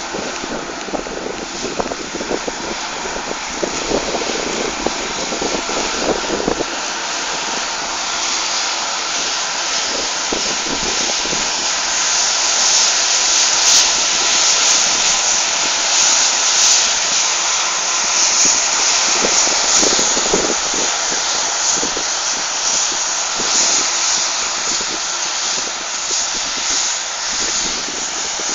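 CLAAS combine harvesters running while cutting grain: a steady engine and threshing drone with a strong hiss, louder through the middle.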